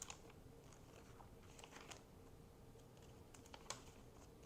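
Faint rustling and light clicks of paper pages being handled and turned in a handmade junk journal, with a sharper tap about three and a half seconds in, over a faint steady hum.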